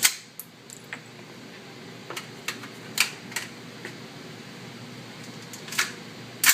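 Scattered sharp metallic clicks and clacks of a jammed AR-15 being worked by hand, with a few louder sharp cracks at the start, about three seconds in, and twice near the end.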